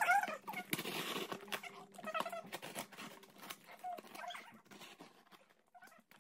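Plastic mailer wrapping and packing tape crinkling and tearing as fingers pick a parcel open, in a run of small rustles and clicks with short whining squeaks now and then; it dies down near the end.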